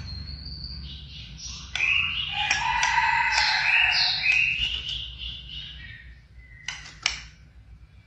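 White-rumped shama (murai batu), a white-speckled 'blorok' bird, singing: a short whistle, then a loud run of rapid, varied whistles and chattering notes for about four seconds, ending with two sharp notes near the end.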